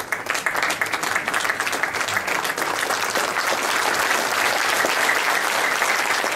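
Audience applauding, many hands clapping steadily in a large hall.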